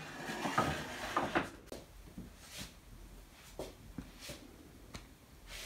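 Rustling and clatter of plates being set down on a table, followed by a few scattered light knocks and clicks.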